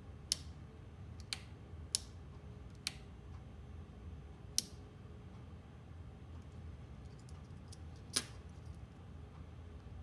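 Faint, scattered sharp clicks, about six of them at uneven intervals, from handling a small ME-8111 limit switch with multimeter probes pressed against its metal terminals, over a low steady hum.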